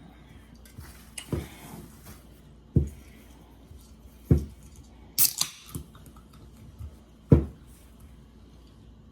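A person gulping soda from a can: a short, low thump at each swallow, about one every second and a half. A brighter, sharper sound comes about five seconds in.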